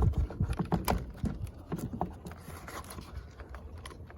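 Irregular clicks and scrapes of a short screwdriver working a hard-to-reach screw while the generator housing is screwed back together. The clicks are loudest and closest together in the first second or so.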